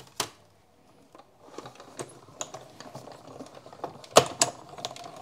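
Manual hand-cranked die-cutting machine feeding a plate sandwich through its rollers to cut a tree die from cardstock: a low rumble with a run of small clicks, and two louder knocks near the end.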